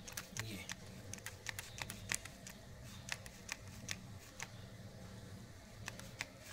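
Trigger spray bottle pumped rapidly, a quick series of clicks and short squirts about three or four a second, pausing for about a second past the middle before starting again.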